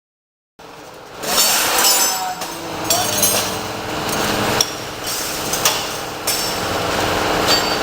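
Several sharp knocks and clatter over a steady noisy background, with voices mixed in.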